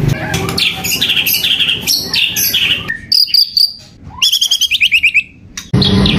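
Caged songbirds singing loud, rapid high whistled phrases, among them a white-rumped shama's ringing whistles and a fast repeated trill. Near the end the song gives way suddenly to a steady low hum.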